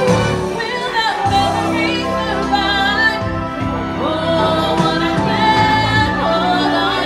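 A woman singing into a handheld microphone, her amplified voice carrying a gliding melody over instrumental backing music.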